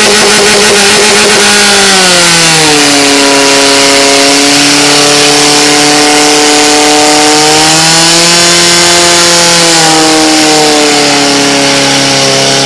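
Portable fire pump's engine running flat out while the pump drives water through the attack hoses. Its pitch drops about two seconds in, then holds high with a slight rise and fall.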